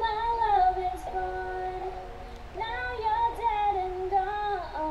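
A young woman singing solo into a studio microphone: two phrases with sliding, held notes and no backing heard. She is singing through a sore throat.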